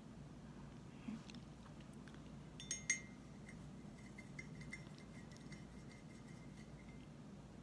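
Faint room hum with a small tick about a second in, then a sharp clink about three seconds in that leaves a thin ringing tone fading out over about four seconds.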